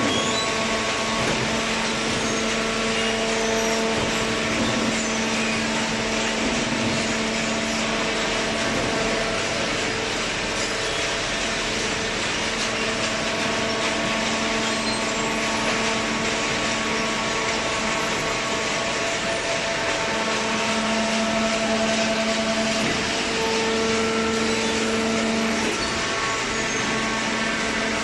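Automatic horizontal paper baler running: steady machinery noise from its hydraulic pump and motor, with a whine at several pitches that fades and comes back now and then.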